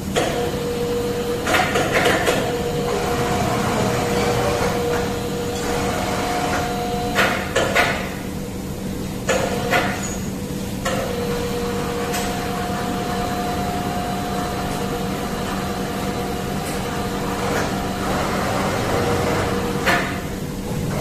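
Automatic zinc spray machine running: a steady mechanical hum carrying two held tones, broken by several short clunks and knocks. The tones cut out briefly twice, a few seconds apart, with some of the clunks.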